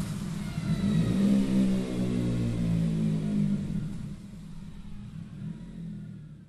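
KTM 125 Duke's single-cylinder four-stroke engine through a MIVV MK3 aftermarket exhaust, revving. Its pitch dips and climbs back about a second in, then holds steadier and fades out over the last few seconds.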